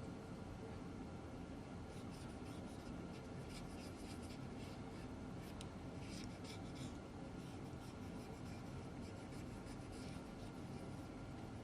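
Faint scratchy strokes of a Loctite plastic-bonding activator pen's felt tip wiped across plastic, in spells from about two seconds in and again later on, over a steady low hum.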